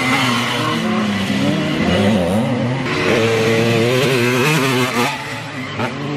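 Several small dirt-bike engines racing at once, revving up and down, their pitches rising and falling against each other as the bikes take the corner.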